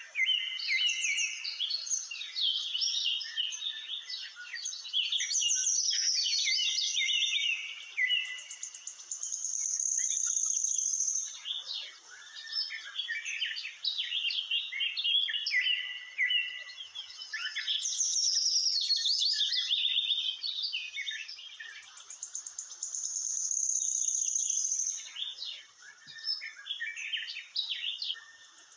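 A chorus of small birds chirping and trilling, their calls overlapping densely and rising and falling in pitch. Twice a high, steady buzzing trill holds for a second or two.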